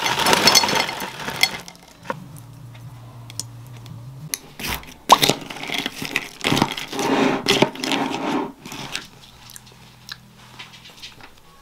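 Granola clusters poured from a bag rattle into a bowl, then a spoon stirs and scrapes them through yogurt, with sharp clicks against the bowl.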